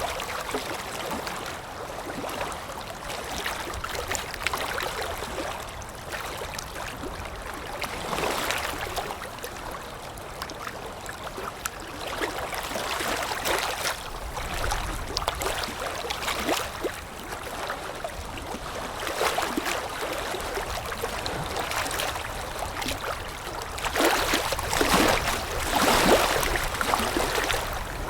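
Small wind-driven waves lapping against the shore, in irregular splashy surges every few seconds, with a stronger run of laps near the end, over a low wind rumble.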